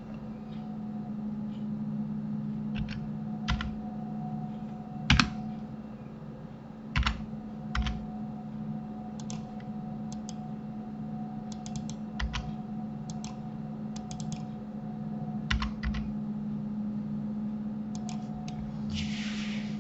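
Computer keyboard keys and mouse buttons clicking now and then in short irregular clusters, over a steady low electrical hum.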